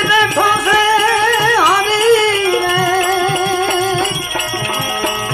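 Devotional bhajan music: a held, wavering melody line over a steady drone, with regular hand-drum beats underneath. The melody line ends about four seconds in while the drone and beats go on.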